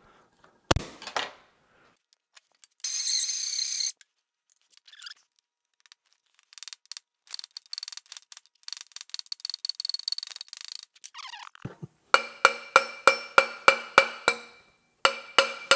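Hammer tapping a ball bearing into the end of a steel steering column tube: a run of evenly spaced ringing metal strikes, about three a second, starting about twelve seconds in, with a short pause near the end. Before that come a single thump, a brief loud hiss and a stretch of light rattling and clicking.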